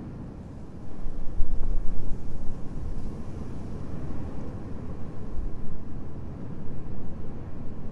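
Gusty wind buffeting the microphone, a low uneven rumble that jumps up about a second in, over the steady rush of a fast white-water river.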